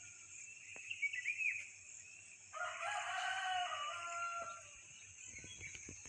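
A rooster crowing once, one call about two seconds long, with a few short bird chirps a second or so earlier, over a steady high hiss.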